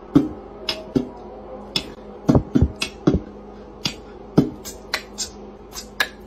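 Sharp, irregular clicking taps, about a dozen, from a cat's claws and paws striking a hard tiled floor as it walks.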